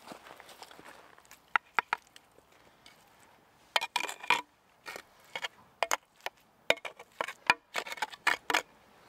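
A flat tool blade knocking and scraping against stone as wet clay is pressed into the gaps between rocks. Three sharp taps about a second and a half in, then a quicker run of knocks and scrapes through the second half.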